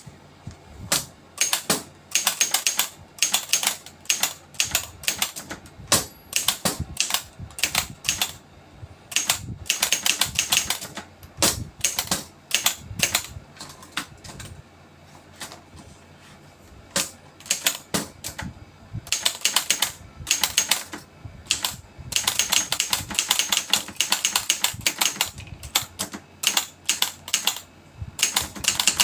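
Triumph Tippa portable typewriter being typed on: runs of quick sharp key strikes, several a second, broken by short pauses, with a quieter spell about halfway through.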